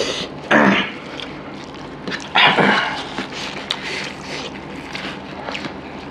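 Two short, loud calls about two seconds apart, over steady small clicking and smacking of people eating rice and curry by hand.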